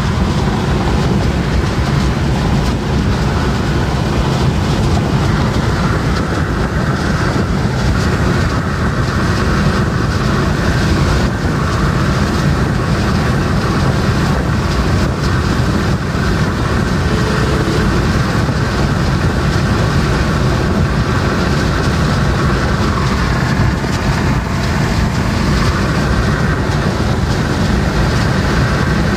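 Steady road noise inside a car's cabin at high speed on the highway: a loud, even rumble of tyres, wind and engine.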